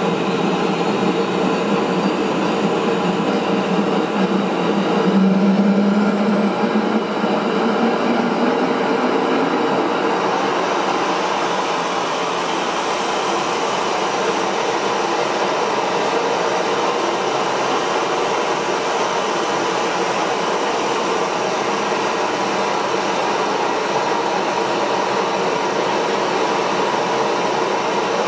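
Small jet engine running loudly and continuously, its high turbine whine rising in pitch over the first dozen seconds as it speeds up, then holding steady.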